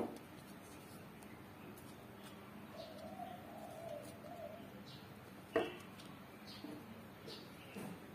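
Faint background birdsong: a dove cooing once for about a second and a half, and scattered short high chirps. A single sharp tap sounds a little past halfway.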